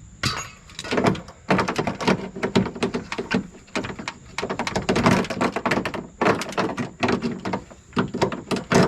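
Metal latch parts and rods rattling and knocking inside a pickup truck's door shell as they are worked loose by hand, a busy run of quick, irregular knocks and clanks.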